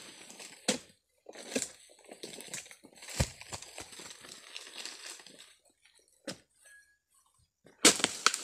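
A long-pole harvesting sickle cutting and tearing at oil palm fronds: a series of sharp cracks and rustling crunches, the loudest near the end.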